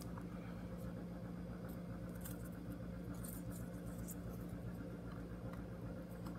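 A few faint light clicks and rustles of carbon-fibre propellers being handled and pressed onto a DJI Mavic 2 drone's motor mount, over a steady low hum.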